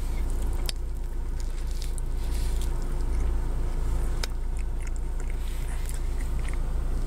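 A person biting into and chewing a soft cream-filled eclair, with a few sharp mouth clicks, over a steady low hum.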